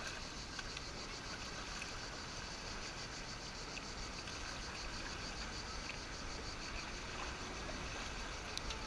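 Water washing and lapping against a kayak as it is paddled, heard muffled through a GoPro's waterproof case, with a steady, fast-pulsing insect chirr in the background.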